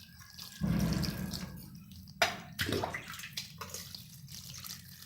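Cold water poured over boiled chow mein noodles in a strainer, splashing as it drains. It starts about half a second in, with a sharp knock about two seconds in.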